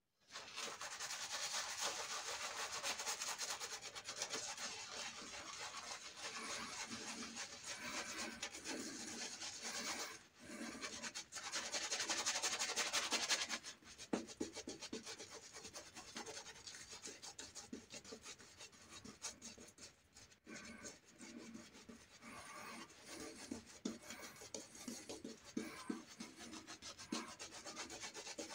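Silvertip badger shaving brush swirling lather across the face, a continuous wet rubbing close to the microphone. It is loudest for a few seconds about halfway through, then breaks into shorter strokes.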